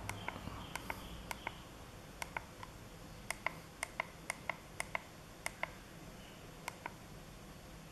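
Push buttons on a Leaf e-bike LCD display clicking under a thumb: about twenty quick clicks, many in close pairs, as the wheel-size setting is stepped through.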